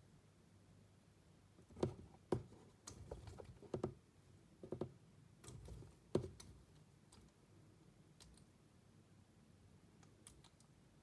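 African bullfrog striking at and gulping down a pinkie mouse: a run of sharp clicks and knocks over a few seconds, the loudest about two and six seconds in, then a few faint ticks.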